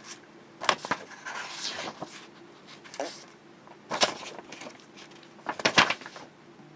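Pages of a hardbound paper planner being turned: several crisp paper flicks and a rustle, a second or so apart.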